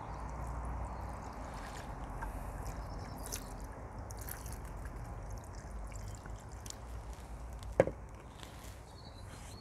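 Water pouring from a plastic jug into a glass vase in a steady stream, filling it to the brim. A single sharp knock about eight seconds in.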